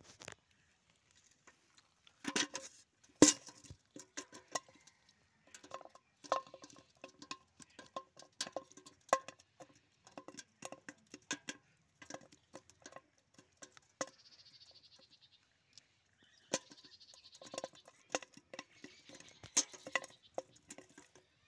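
A monofilament gill net being handled as small fish are worked out of its mesh: crisp rustling of the net and a long, irregular run of small clicks and taps.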